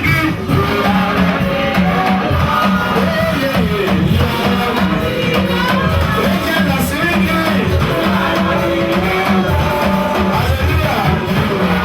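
Loud band music with guitar and a steady drum beat, and voices singing.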